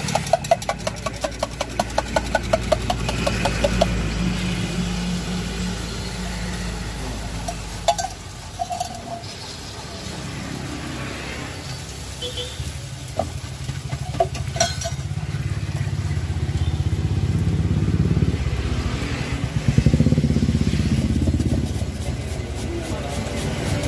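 Beaten egg sizzling in a hot pan over a gas burner, with a steady low engine rumble of passing vehicles underneath. A quick regular tapping sounds in the first few seconds, and a few sharp clicks come later.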